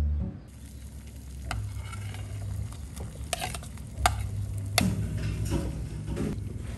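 Water boiling in a small nonstick pan of sliced shiitake mushrooms. Several sharp clinks come as the pan lid is moved and a ladle of cooked rice is tipped in near the end.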